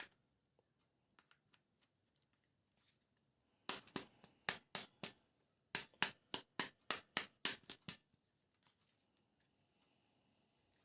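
A run of sharp clicks and taps from hands handling plastic toys: a few faint ticks, then about sixteen crisp clicks in two quick groups over some four seconds.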